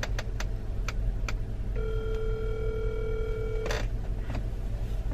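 Outgoing phone call's ringback tone on speakerphone: one steady ring about two seconds long, preceded by a few light clicks.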